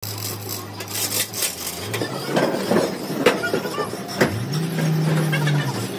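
Workshop noise: a machine's steady low hum that rises in pitch about four seconds in and holds there, with a few sharp metal knocks.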